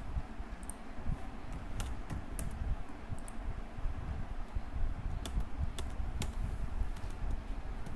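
Computer keyboard keystrokes, a dozen or so irregularly spaced clicks, over a steady low rumble.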